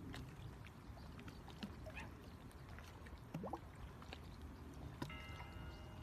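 Small waves lapping and gurgling at the lake's edge, with scattered light ticks and a few short sweeping bird-like calls. Near the end there is a held tone of about a second.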